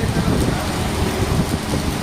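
Heavy rain falling steadily, with a deep rumble underneath.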